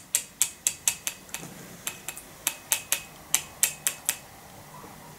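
Plastic measuring scoop of formula powder tapped over and over: a run of sharp, light clicks, about four a second and unevenly spaced, that stops about four seconds in.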